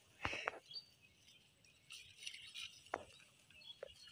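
A few soft sharp clicks and rustles from hands handling fishing tackle, with a faint short bird chirp.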